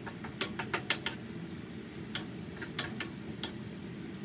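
Spatula scraping and knocking against a frying pan while sliced bamboo shoots are stirred: irregular clicks and taps, over a steady low hum.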